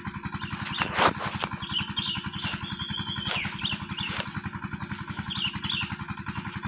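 A small engine running steadily with a fast, even low putter, while birds give short chirps now and then. A sharp knock sounds about a second in.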